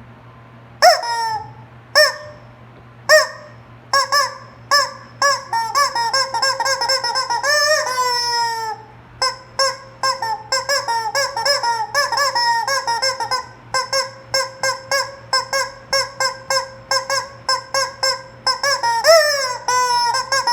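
Rubber squeaky chicken toy being squeezed over and over. It gives a few separate squawks at first, then fast runs of short squeaks, with a longer falling squawk now and then.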